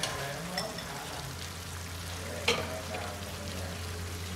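Crabs in tamarind sauce sizzling and bubbling in a frying pan, a steady crackle over a low hum, with one sharp clack about two and a half seconds in.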